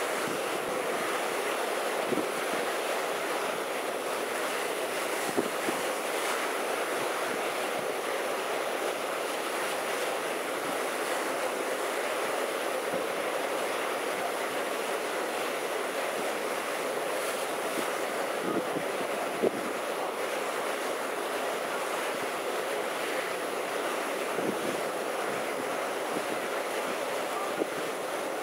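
Strong wind buffeting the microphone over a rough, choppy sea: a steady rushing noise, broken by a few brief knocks.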